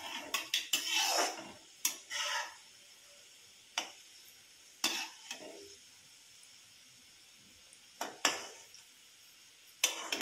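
Slotted spoon knocking and scraping against an iron kadhai while turning gulab jamun frying in hot oil. Each stroke sets off a short surge of sizzling over a faint steady sizzle: a cluster of knocks in the first second, then single ones every second or two.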